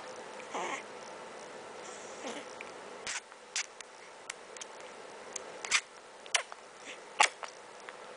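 A newborn baby hiccuping: short, sharp hics at uneven intervals, most of them from about three seconds in, a few coming in quick pairs.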